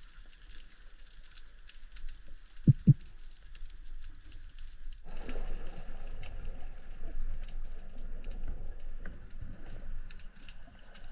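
Underwater ambience picked up by a diving camera: a constant fine crackling, with two low knocks close together about three seconds in. About five seconds in, a rougher rushing water noise sets in and stays.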